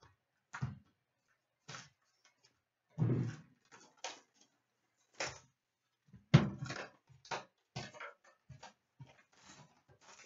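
Cardboard hobby box of trading-card packs being handled on a glass counter: a string of short knocks, taps and rustles as it is picked up, set down and its lid opened, with the sharpest knock a little past halfway.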